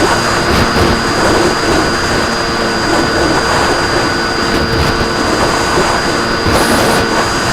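Onboard sound of an RC plane in flight: the motor and propeller droning steadily, with a thin high whine held at one pitch, under heavy wind rush.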